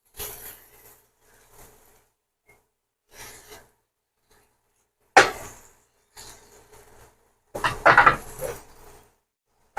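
Kitchen clatter of pots, pans and utensils being handled, in scattered knocks with pauses: a sharp knock about five seconds in and a busier run of clattering near the end.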